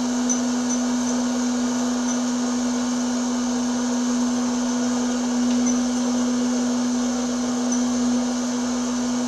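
Hot-air popcorn popper running: its fan motor blows with a steady hum and even rushing hiss.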